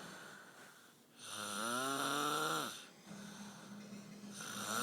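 Loud snoring: one long snore about a second in that falls in pitch as it goes, a quieter steady hum after it, and the next snore starting near the end.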